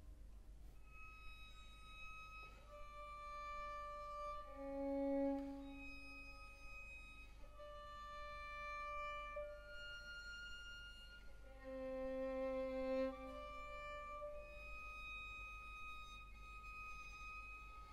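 Chamber string orchestra playing a quiet, slow passage of long held notes, with two louder swells about five and twelve seconds in.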